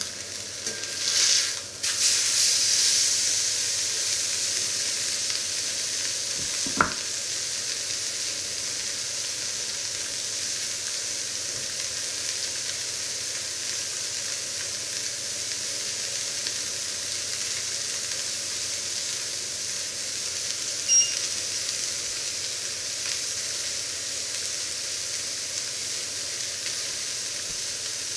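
Seasoned meat searing in a very hot, smoking pan, sizzling steadily. The sizzle flares up loudly about a second in as the meat is turned over with tongs. There is a single sharp click a few seconds later and a short high beep about two-thirds of the way through.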